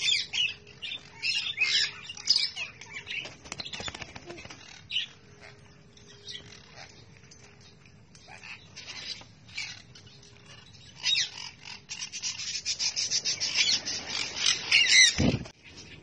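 Sun conures and other small parrots squawking and screeching in short, high-pitched calls. A rapid run of calls and a brief low thump come near the end.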